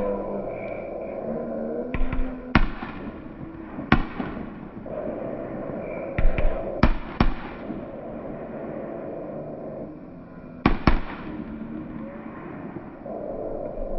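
Black Widow consumer firework shells bursting: about ten sharp bangs in irregular clusters, several close together a little past the middle and a pair near the end.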